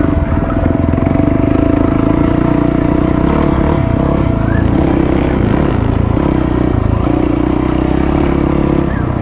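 Single-cylinder 450 four-stroke dirt bike engine running at a fairly steady speed under way, with small rises and dips in revs.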